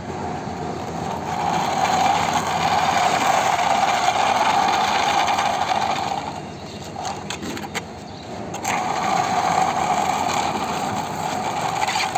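A small motor running with a steady hum; it drops away about six seconds in and starts again about two and a half seconds later.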